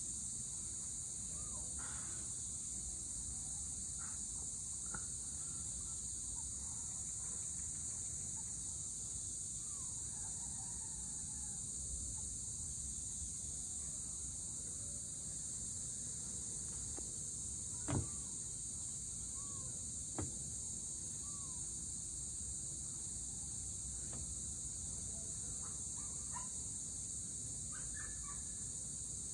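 Steady high-pitched insect chorus over a low, even background noise, with scattered faint chirps and two sharp clicks about two seconds apart past the middle.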